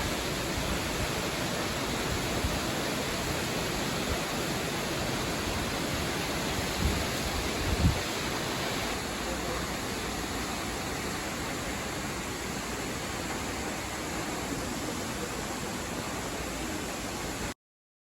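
Nachi Falls, a tall waterfall, rushing with a steady, even noise of falling water. Two brief low bumps come about seven and eight seconds in, and the sound cuts off suddenly near the end.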